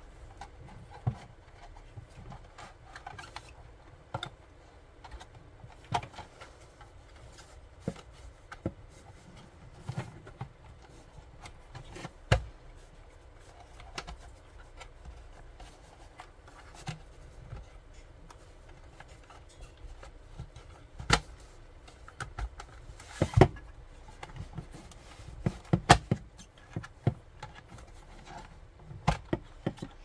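Scattered clicks, taps and rubbing from a 5G router's plastic casing and wired power cable being handled as the board and cable are pushed back inside the housing, with a few sharper knocks in the second half.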